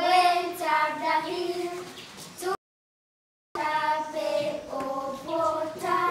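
Children's voices singing a song together in held, changing notes. The sound cuts out completely for about a second near the middle.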